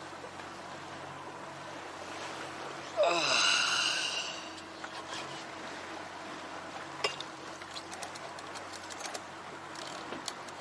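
A man's long frustrated sigh or groan falling in pitch, about three seconds in and lasting about a second and a half, over steady wind and water noise on a boat.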